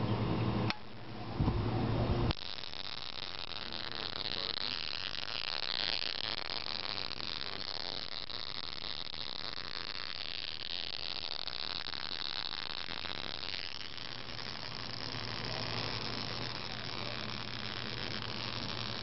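A switch clicks, then about two seconds in a steady hissing buzz starts and holds: the two-screw spark gap of a homemade Kapanadze-style generator, fed by a flyback transformer off a 12-volt battery, firing continuously. A low hum joins it about three-quarters of the way through.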